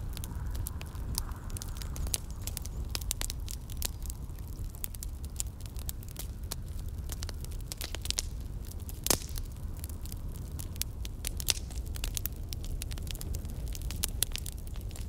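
Wood fire burning in a stainless-steel tabletop smokeless fire pit: irregular sharp crackles and pops from the burning wood over a low steady rumble, with one louder pop about nine seconds in.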